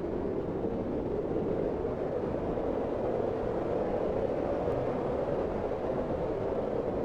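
Blizzard wind blowing steadily: an unbroken rushing noise with a deep rumble underneath, holding at the same level throughout.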